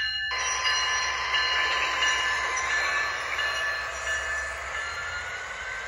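Sound from the onboard Proto-Sound 3.0 speaker of an HO-scale GE ES44AC diesel locomotive model as it runs on the track. A horn blast cuts off just after the start, then the diesel sound runs as a steady hissing rush with whining tones, one tone rising slowly in pitch over the last couple of seconds.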